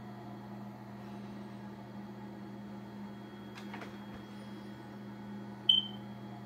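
Steady low machine hum, with one short, high ringing ping near the end that fades within a fraction of a second.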